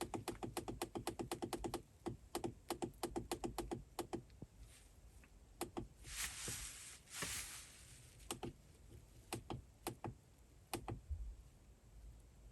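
Dash cam's menu buttons pressed over and over while scrolling through settings, each press giving a short electronic click-beep. A fast run of about eight a second for the first two seconds, then slower single presses, with a brief rustle of handling about six seconds in.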